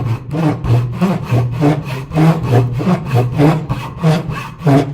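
Tenon saw cutting into the end grain of a wood blank held in a vise, with quick, even strokes at about three a second. It is cutting a shallow kerf, about 5 to 6 mm deep, along a diagonal line so the lathe's drive spur can seat in it.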